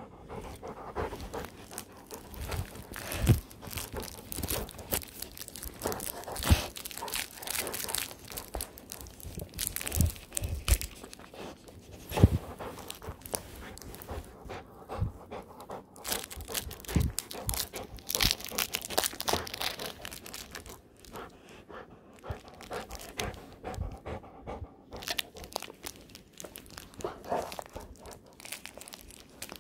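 A pitbull-mix puppy chewing and mouthing a plush duck toy up close, panting, with the fabric rustling and crunching and irregular sharp knocks as the toy bumps about.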